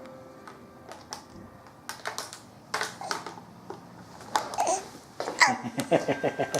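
A baby making a string of short, separate sounds and babbling.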